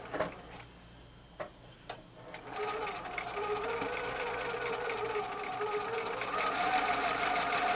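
Husqvarna electric sewing machine starting up after a few soft clicks about two and a half seconds in, then running steadily as it stitches a seam. It gets a little louder and higher in pitch near the end.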